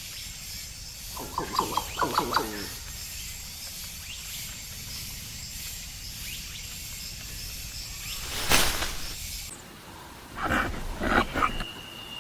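A wild animal calling: a bout of short, rapidly repeated cries, a single harsh noisy burst, then another bout of repeated cries, over a steady high hiss.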